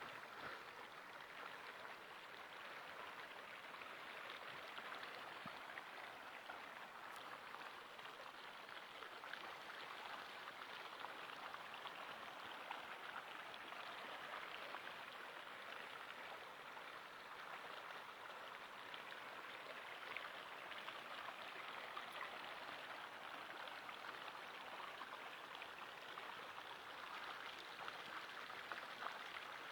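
Mountain river flowing over stones: a steady, even rush of running water.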